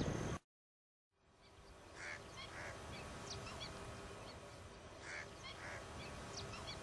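Distant honking calls of large waterbirds: two calls in quick succession, repeated about three seconds later, over faint chirping of small birds. The sound drops out briefly near the start, then fades back in.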